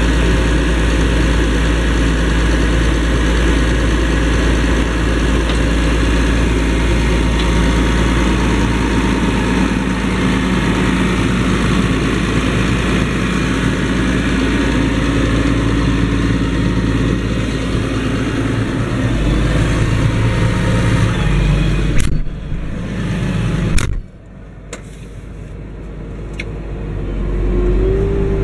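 Challenger MT765C rubber-track tractor engine running steadily under load while pulling a cultivator, with a deep hum. Near the end come two sharp knocks; the engine sound then drops sharply and builds back up over the last few seconds.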